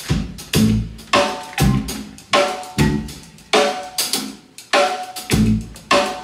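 A drum-kit groove, kick and snare hits roughly two a second, with a 1989 Fender Telecaster electric guitar playing short chord stabs along with the beat.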